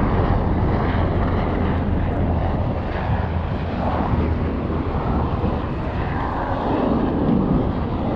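Aircraft flying overhead: steady engine noise with a broad hiss and a low hum.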